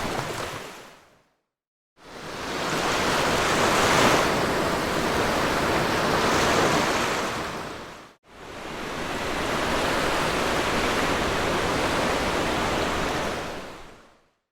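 Sea waves breaking and washing up a beach in a steady rush of surf. The sound fades to silence about a second in, returns, drops out briefly about eight seconds in, and fades out again near the end.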